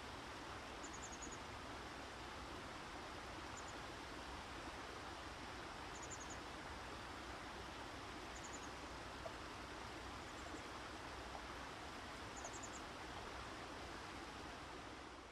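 Outdoor nature ambience: a steady, faint rushing hiss like running water or wind, with a small bird's high, thin chirps in quick clusters of three or four notes about every two to three seconds.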